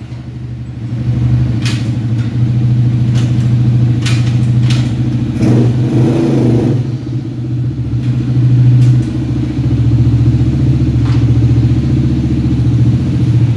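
150cc sport quad ATV's small single-cylinder engine idling steadily, with a few light clicks.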